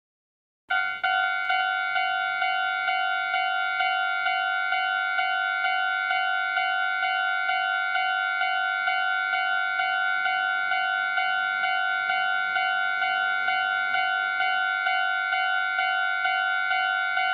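Japanese railroad-crossing warning bell, the electronic 'kan-kan' alarm, ringing in a steady repeating rhythm of about two strokes a second. It starts about a second in.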